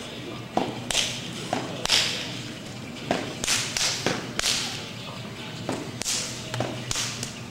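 A stepper's hand claps, body slaps and foot stomps in a step routine: about a dozen sharp percussive hits in an uneven rhythm, a few in a quick run about halfway through.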